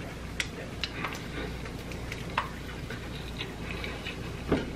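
Close-miked chewing of a taco: scattered wet mouth clicks and smacks, a few every second or so, over a low steady hum.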